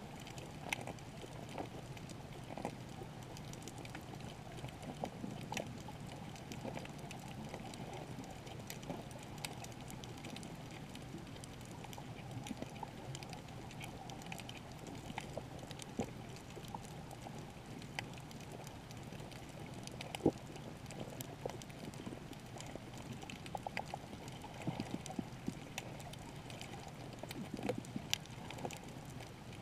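Underwater reef ambience just below the surface: a steady muffled rush of water, dotted with scattered sharp clicks and crackles.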